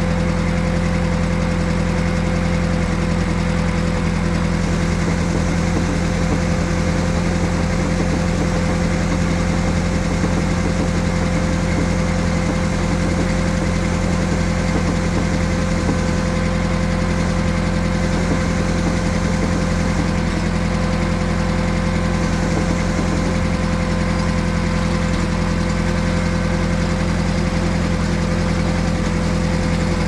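A Mobile Dimension sawmill's engine idling steadily with an even, unchanging drone, not under load from a cut.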